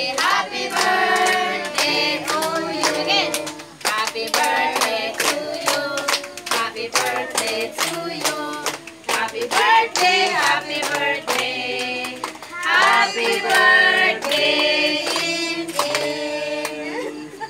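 A group of women and children sings together, clapping their hands along with the song.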